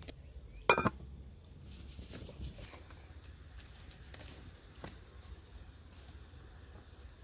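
A metal lid clanks down onto a steel cooking pot with a brief metallic ring, about a second in. A few faint knocks follow as firewood sticks are pushed into the fire under the pot.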